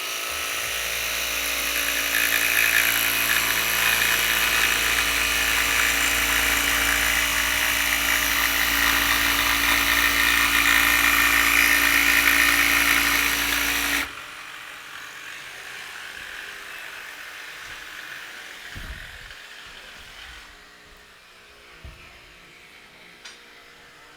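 Jigsaw with a regular blade cutting along a line in a wooden board, running steadily for about fourteen seconds and then cutting off suddenly. A much fainter tool sound carries on afterwards and fades, with a few small knocks.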